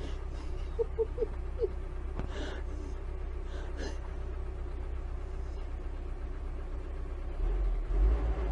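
Steady low engine rumble, with a few short chirps about a second in; the rumble grows louder near the end.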